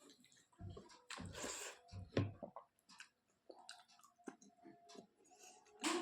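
A person chewing a mouthful of chicken and rice, close to the microphone: several chewing strokes in the first half, then lighter clicks of the mouth in the second half.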